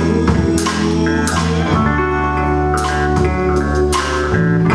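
Live indie rock band playing: electric guitars, bass and drum kit, with sustained keyboard-like chords and repeated cymbal hits.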